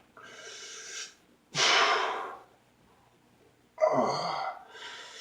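A man breathing hard and loudly: four forceful breaths, the second and third the loudest, the third starting with a short voiced grunt.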